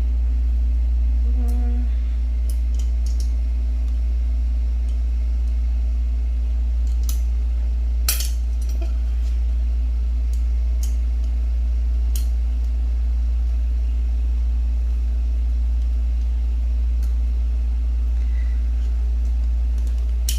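Metal and plastic parts of a camera stand clicking and scraping now and then as its pole is twisted tight into its base, with one sharper click about eight seconds in, over a loud steady low hum.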